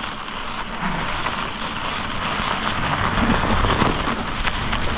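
Steady rushing noise of a mountain bike on studded winter tyres rolling over snow, growing a little louder as it goes.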